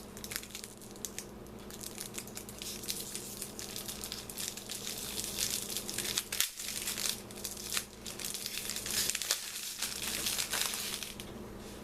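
Crinkling and rustling of the small wrapping bag around a handmade mini soap as it is handled and opened, in a run of irregular crackles.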